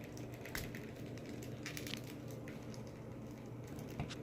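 Faint clicks and light knocks of plastic action figures being handled, over a steady low hum.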